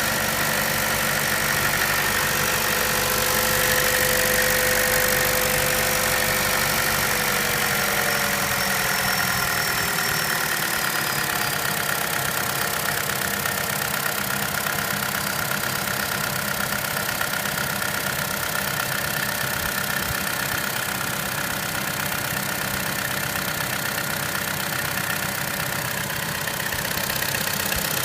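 2013 Chevrolet Cruze Eco's 1.4-litre turbocharged four-cylinder engine idling steadily with a clicking noise from the engine, which the dealer says is normal.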